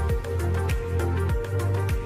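Background music with a steady beat: a deep kick drum about every 0.6 seconds over a held bass, with light ticks between.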